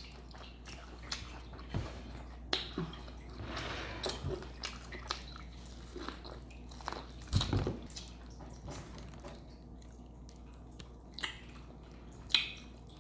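A person eating seafood boil close to the microphone: wet chewing and biting with many short sharp mouth clicks and crackles. There is a louder thump a little past the middle.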